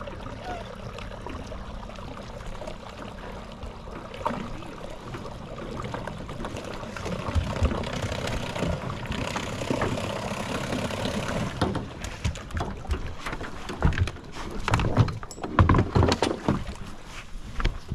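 Knocks and bumps inside a small john boat over a steady bed of water and wind noise. The knocks come mostly in the last third, a string of sharp hollow hits.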